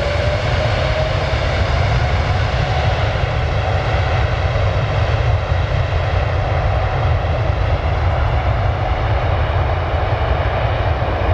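Airbus A330's twin jet engines at takeoff thrust: a deep, loud rumble and roar, with an engine whine rising in pitch over the first few seconds and then holding steady.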